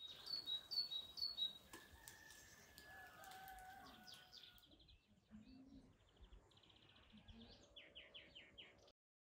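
Small birds chirping in short high calls and a rooster crowing about two seconds in. Quick bird trills and chirps follow near the end.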